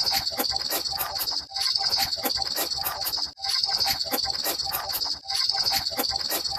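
A short sound-effect clip played on a loop, repeating about every two seconds with a brief gap between repeats: a high, steady chirring sound with rapid clicks running through it.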